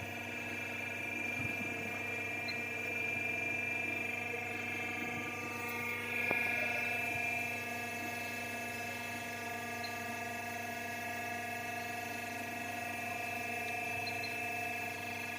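CNC pipe bending machine running with a steady high-pitched whine made of several tones. About six seconds in the pitch pattern shifts and it briefly gets louder, with a single click.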